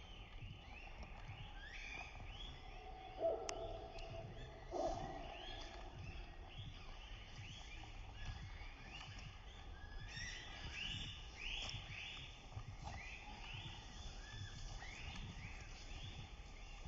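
Small birds chirping, many short calls overlapping throughout, with two louder, lower calls from a larger bird about three and five seconds in.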